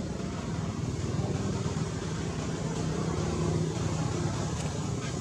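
A motor running steadily: a low hum with a few held tones.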